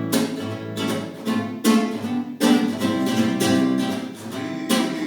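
Acoustic guitar strumming chords, repeated strokes about twice a second, each ringing on.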